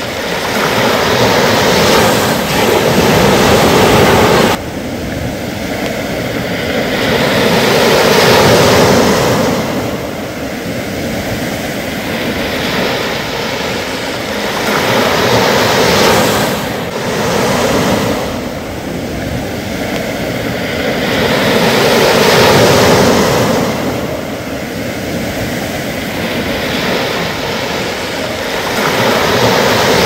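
Small sea waves breaking and washing up a sand beach, the surf swelling and falling back about every six seconds. The sound drops suddenly about four and a half seconds in.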